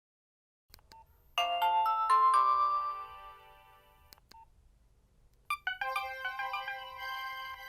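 Nokia 1600 mobile phone playing a ringtone through its loudspeaker: a quick cascade of chime-like notes that ring on and fade, then after a pause a second cascade that keeps sounding. A faint click comes before each cascade.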